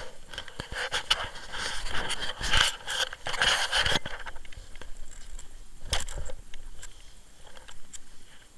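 Skis scraping and hissing over packed snow in uneven surges, loudest a couple of seconds in and again near the six-second mark, with a few sharp knocks.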